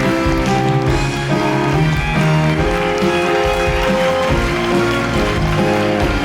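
Loud instrumental music from a stage musical's encore curtain call, with steady held notes.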